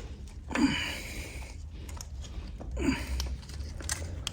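Small clicks and rubbing of hand work on the cam belt and pulleys, with two short strained exhalations, about half a second and three seconds in.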